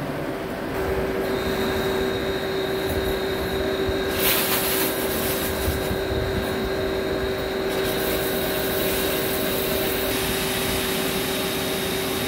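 CNC vertical lathe running with the cast iron turbo compressor housing spinning in its chuck: a steady hum with a high whine that comes in about a second in. A brief hiss about four seconds in.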